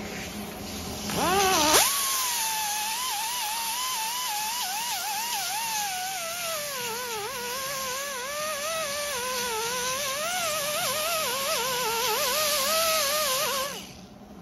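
Pneumatic die grinder with a small abrasive disc, grinding on steel grille bars. It spins up with a quick rising whine about two seconds in, then runs with a high whine and air hiss that waver up and down in pitch. It stops just before the end.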